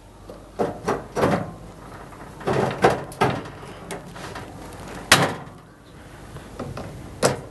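A plastic solenoid water inlet valve being pushed back into its mounting clip in a washing machine's sheet-metal chassis: a series of plastic knocks and scrapes, with the loudest, sharpest click about five seconds in as the valve clips into place.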